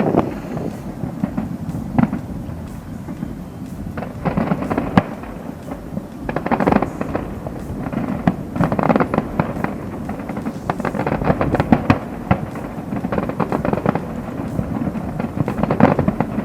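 Fireworks display bursting overhead: bangs and dense crackling come in clusters every second or two, with some shells louder than the rest.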